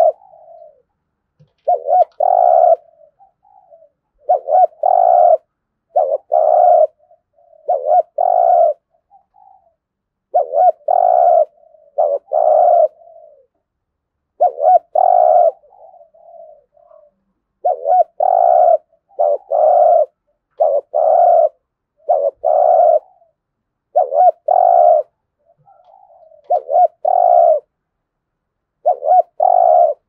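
Spotted dove giving its rapid 'thúc gù' cooing: loud, short deep coos, often in pairs, about one a second, with soft low notes between them.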